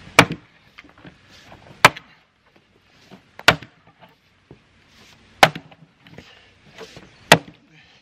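Axe chopping into pine firewood rounds held upright in a tire: five sharp strikes, about one every two seconds.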